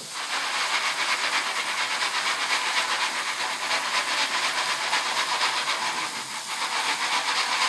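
Kitchen faucet running a steady stream of water onto lead air rifle pellets in a plastic colander, a constant hiss of splashing water.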